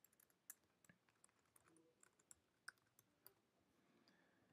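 Faint, irregular keystrokes on a computer keyboard, near silence between them.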